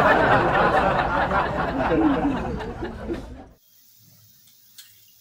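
Crowd laughter laid in as a laugh-track sound effect, loud at first and fading out about three and a half seconds in. A few faint clicks follow.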